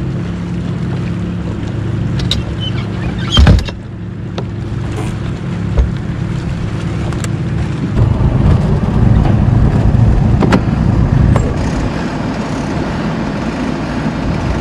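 Bass boat's outboard engine running steadily, with a single loud knock about three and a half seconds in. From about eight seconds the engine rumble is louder and rougher.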